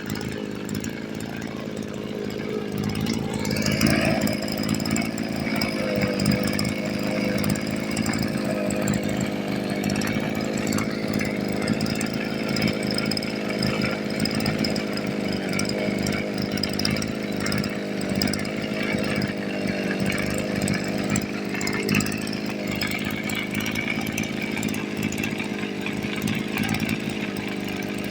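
Kioritz SRE260R brush cutter's small two-stroke engine running, picking up speed about three to four seconds in and then holding steady. The seller lists the engine as making an abnormal noise.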